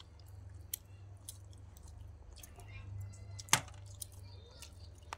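Grilled crab shells being cracked and pulled apart by hand, with eating noises: scattered small clicks and snaps and one sharp crack about three and a half seconds in, over a steady low hum.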